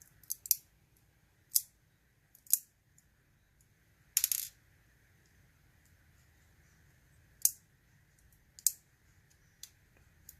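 Small metal parts of a dismantled Mul-T-Lock dimple padlock clinking as they are handled: a few sharp, separate clinks, with a short rattle a little past four seconds in.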